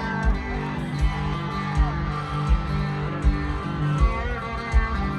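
Live band music: strummed guitars over a steady kick-drum beat.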